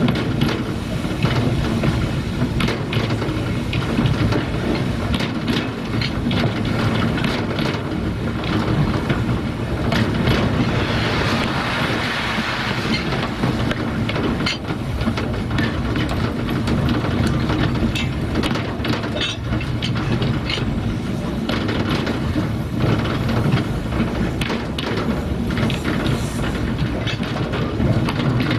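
Narrow-gauge steam train running on the track: a steady rumble with irregular clicking and clattering of wheels over the rail joints, and a louder rushing hiss for a couple of seconds around the middle.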